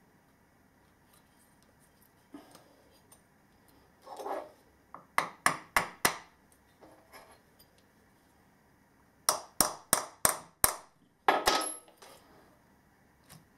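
Hammer tapping on the metal casing of an electric motor being reassembled, working a part into place: a run of four sharp taps about five seconds in, then a second run of about six taps some four seconds later.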